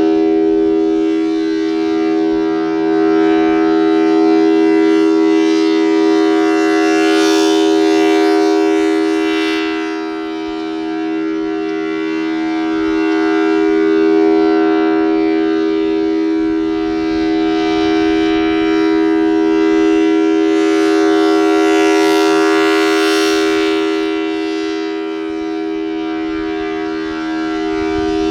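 Federal Signal Thunderbolt 1000T outdoor warning siren with a 4/5-port rotor, sounding a loud steady dual-tone wail that holds its pitch. As the rotating horn sweeps around, the sound swells and fades roughly every 15 seconds, brightest when the horn faces this way.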